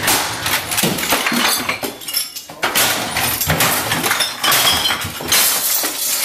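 Things in a room being knocked over and smashed: repeated crashes and breaking, with glass clinking.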